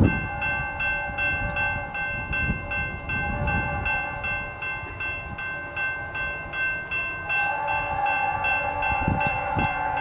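Grade crossing bell ringing steadily, about two and a half strikes a second. About seven seconds in, the approaching train's horn, a Leslie horn on the lead NS SD60I locomotive, starts sounding under the bell and grows louder.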